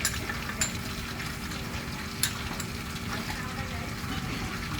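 Food frying in a pan: a steady sizzle with a few sharp clicks, likely the cooking utensil knocking the pan.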